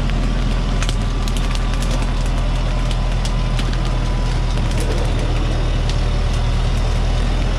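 Diesel engine of a Thaco Forland truck running steadily, with scattered crackles and snaps of dry acacia bark and leaves on top.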